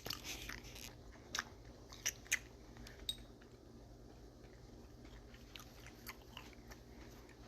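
Faint chewing close to the microphone, with a few short crunchy clicks in the first three seconds, over a low steady hum.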